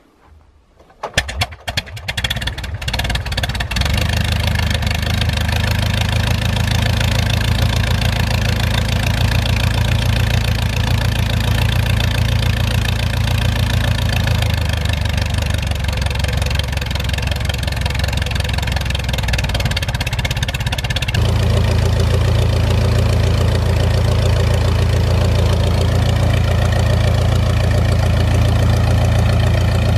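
A de Havilland Tiger Moth's four-cylinder inverted inline engine hand-swung into life: about a second in it fires unevenly for a couple of seconds, then catches and settles into a steady idle, which grows louder about twenty seconds in.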